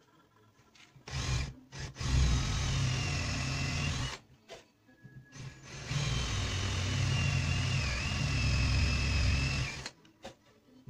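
Cordless drill boring into an axe handle, running in bursts: a brief start about a second in, a run of about two seconds, then a longer run of about four seconds, its steady whine dipping briefly near the end as the bit loads up.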